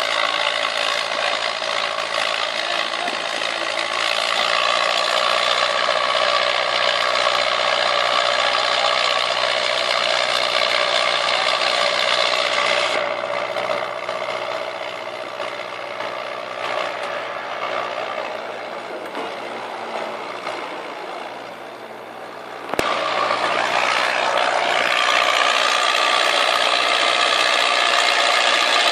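Farmtrac 6055 tractor pulling a heavily loaded trolley: a dense, continuous mechanical rattle and clatter over the engine under load. It eases off somewhat through the middle, then comes back loud abruptly about three quarters of the way through.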